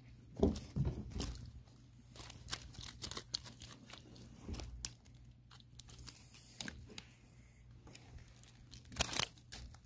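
Wire-mesh fish basket being handled, its wire clicking and rattling irregularly, with a louder cluster of rattles near the end.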